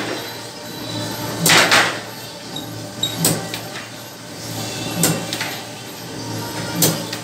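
Bakery conical dough rounding machine running with a steady motor hum and a clunk repeating about every second and three-quarters, four times, the second one the loudest and longest.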